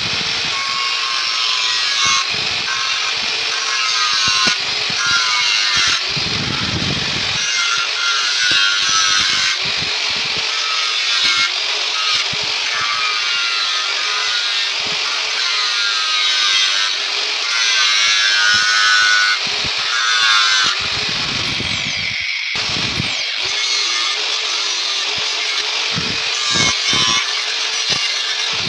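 Angle grinder running with a thin cut-off disc, cutting into the steel side of an AKM magazine: a steady motor whine under the gritty hiss of the disc biting metal. It lets up briefly about three-quarters of the way through, then cuts again.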